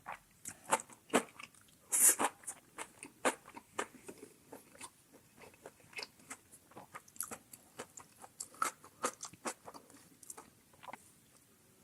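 Close-miked chewing of crunchy food: a quick run of crunches and wet mouth clicks. A louder crunch comes about two seconds in, and the bites thin out near the end.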